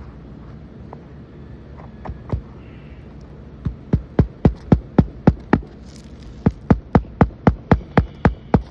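Hammer blows nailing a replacement asphalt shingle onto a roof. A few single strikes, then two fast, even runs of about four blows a second with a short break between them.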